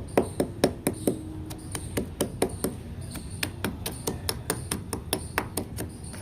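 A rapid, irregular run of sharp taps, about five a second.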